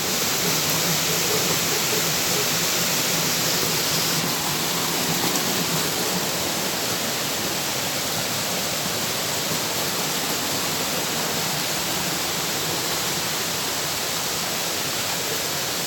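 Steady rushing of a waterfall or fast river, loud and unchanging.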